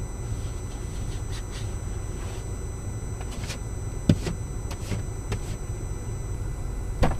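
Steady low rumble of a car, with two sharp knocks, one about four seconds in and one near the end.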